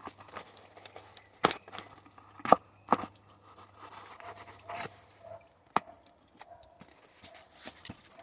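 Cardboard parcel being opened by hand: a string of sharp cracks and scrapes of cardboard and sellotape, then rustling of the contents near the end.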